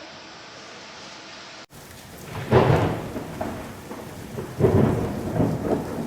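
Faint steady hiss, then after a sudden cut about two seconds in, a thunderstorm: steady rain hiss with rolling thunder rumbles that swell twice.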